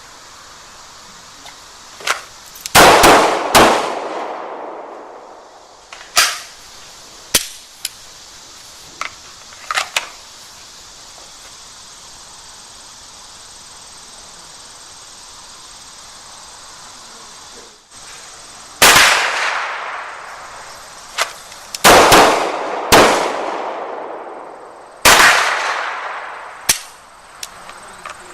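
Pistol shots in quick strings on an outdoor range: three loud shots close together about three seconds in, fainter sharp cracks over the next several seconds, then a second series of loud shots from about nineteen seconds in, each with a ringing echo.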